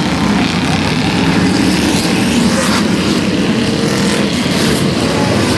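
Engines of derby vehicles running loudly and steadily as they circle the track.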